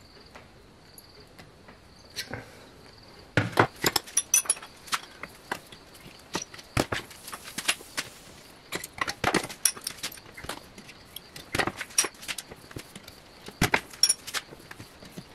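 Irregular sharp metallic clinks and taps as short slit slices of 1-inch steel pipe are pried open with a large screwdriver in a steel bench vise and handled in and out of its jaws. They start about three seconds in and come in quick clusters.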